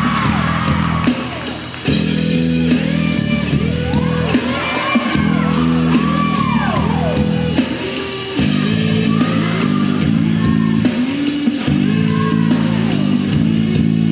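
Gymnastics floor-exercise music played for the routine: a song with singing over guitar and a steady beat.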